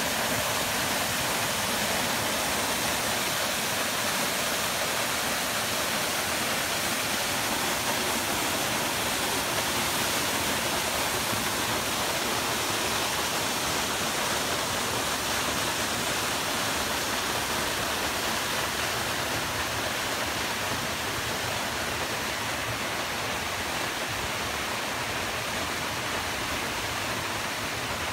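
Waterfall rushing steadily: a dense, even hiss of water falling onto rock into a pool, growing slightly fainter in the last few seconds.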